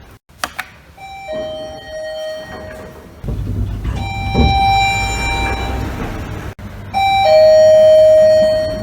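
Elevator arrival chimes from successive clips, mostly two-note ding-dongs falling from a higher tone to a lower one. The last and loudest lower note rings on for over a second. A couple of sharp clicks come just after the start.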